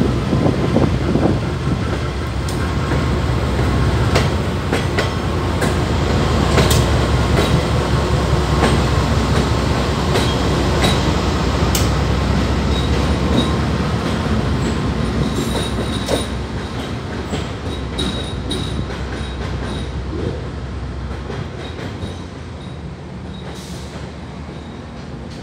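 VIA Rail passenger train departing and rolling past: a steady low rumble of wheels on rail with many sharp clicks over rail joints and a few faint wheel squeals. The rear P42DC diesel locomotive passes about halfway through, and the rumble then fades away as the train leaves.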